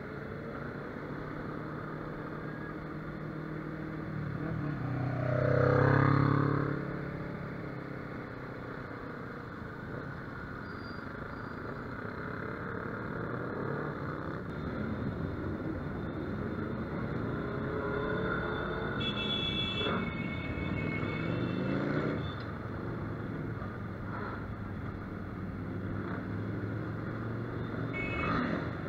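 Motorcycle engine running under way with wind and road noise. About five seconds in, a vehicle passes close and its sound swells and falls in pitch. A short high-pitched tone sounds around twenty seconds in.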